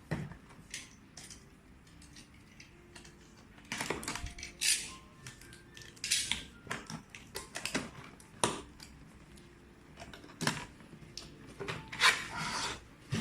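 Packaging being handled during unboxing: irregular rustling and crinkling with scattered clicks and knocks, loudest about four, six and twelve seconds in.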